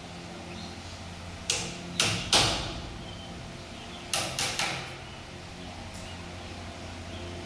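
Hammer blows on wood: two quick sets of three sharp knocks, about two seconds apart, over a low steady hum.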